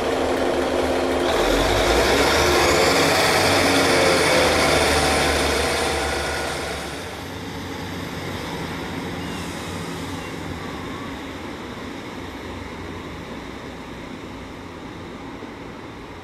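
British Rail diesel multiple units: a Class 143 Pacer's engine and wheels as it pulls away from the platform, then a Class 150 Sprinter running more quietly. A high whine rises about two seconds in, and the noise drops off about seven seconds in, fading slowly after.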